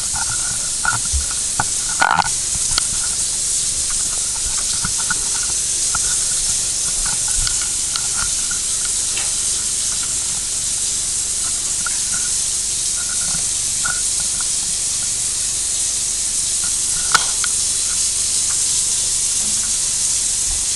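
Bath tap running steadily into a bathtub, a constant hiss of pouring water, with a couple of short knocks.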